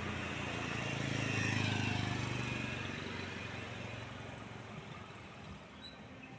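A motor scooter passing on the road, its engine hum swelling to its loudest about two seconds in and then slowly fading away.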